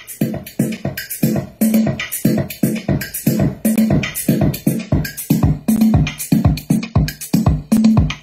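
Electronic music with a drum-machine beat, about two strikes a second over a bass line, played through a 1950 Electrolux canister vacuum converted into a Bluetooth boombox with Focal speakers.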